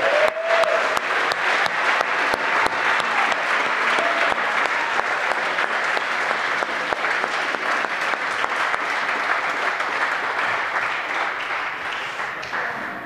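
Audience applauding a choir after its song: dense, steady clapping that dies away near the end.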